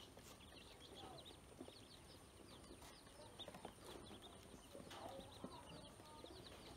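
Ducklings peeping faintly in many quick, high cheeps, with a few small taps of bills pecking feed in a plastic basin.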